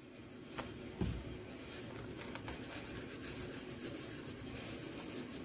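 Paintbrush bristles scrubbing finish into carved wood, a steady scratchy rustle of rapid small ticks. A knock sounds about a second in.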